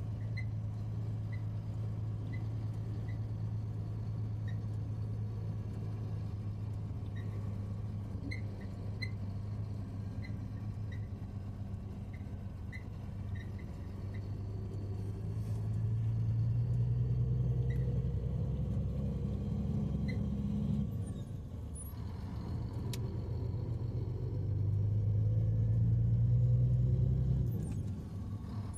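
Heavy truck's diesel engine heard from inside the cab: a steady low drone at first, then pulling away, the engine note rising and getting louder twice, first around the middle and again near the end, with a drop in between and a sudden drop near the end. Light clicks can be heard in the cab during the first half.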